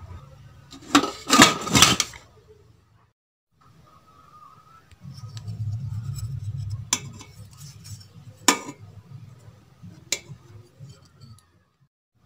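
Metal cookware of an aluminium idli steamer clattering: a quick cluster of loud clanks about a second in. Later there are three single sharp metallic clicks over a low steady hum.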